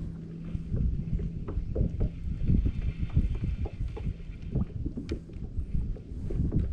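Water knocking and slapping against a small fishing boat's hull, with wind buffeting the microphone. A steady low hum fades out about a second and a half in.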